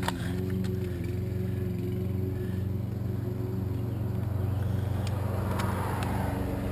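A steady low drone from an idling engine or motor, with a few faint light clicks of a screwdriver bearing on a stripped Phillips screw in an aluminium door-sill trim plate.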